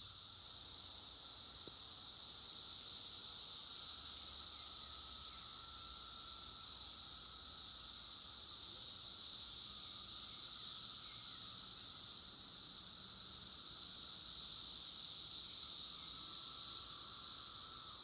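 Chorus of 17-year periodical cicadas: a steady, high-pitched drone that slowly swells and fades, with a fainter, lower drone beneath it.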